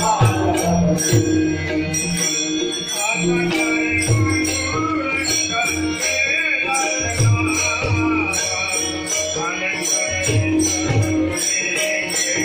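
Marathi devotional abhang music from a bhajan group: small jingling hand cymbals keep a steady, even beat over regular drum strokes and held tones.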